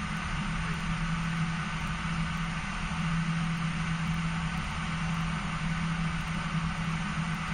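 Steady airliner cockpit noise while taxiing slowly to the gate: a constant low hum with an even hiss over it, from the idling engines and the flight-deck equipment fans.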